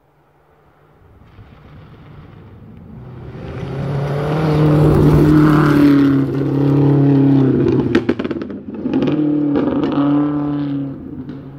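A 2017 Subaru WRX STI rally car's turbocharged flat-four approaches at full throttle on gravel and passes close by, growing from faint to loud. About eight seconds in, the engine note dips briefly under a burst of sharp cracks, then it pulls hard again and fades as the car drives away.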